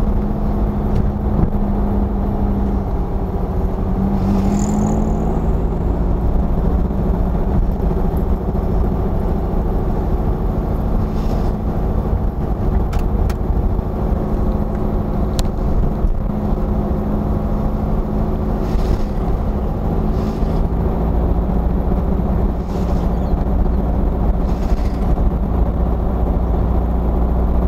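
A 1971 Volkswagen Super Beetle's 2.0-litre engine running steadily at low road speed, heard from inside the car, with a continuous low drone and engine hum.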